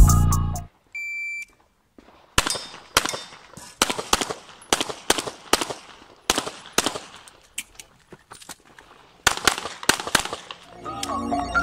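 An electronic shot timer gives its start beep about a second in. A handgun then fires a fast string of shots, many in quick pairs, pausing for about two seconds before a last burst near the end.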